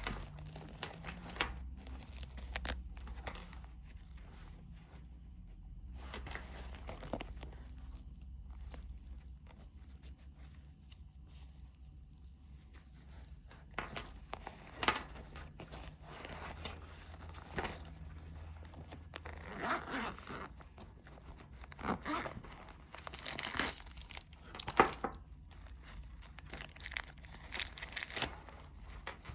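Cycling saddle bag and its kit handled by hand: crinkling and ripping of bag fabric and wrappers, with irregular rustles and sharp clicks. The ripping grows denser and louder in the second half.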